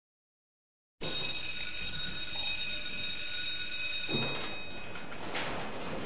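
School bell ringing continuously for about three seconds, starting a second in and cutting off suddenly. A steady rush of background noise follows once it stops.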